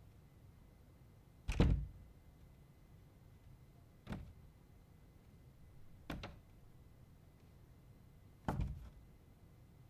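A door being shut four times, each a single short thud with a brief tail, about two seconds apart; the first and last closings are the heaviest.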